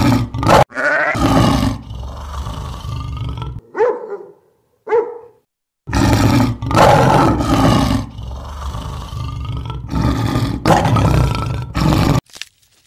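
Male lions roaring: long, loud roars, two short grunts about four and five seconds in, then another run of roars that cuts off suddenly near the end.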